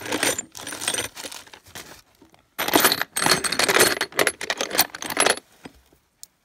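Loose steel bolts clinking and rattling against each other as a hand rummages through a bin of bolts. The sound comes in two bouts, with a short pause about two seconds in, and dies away near the end with one last click.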